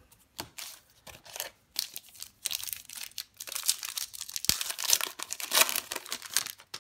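2018 Topps Heritage Minor League baseball card pack's wrapper being torn open and crinkled by hand: scattered crackles at first, then a dense run of ripping and crinkling from about two seconds in, stopping just before the end.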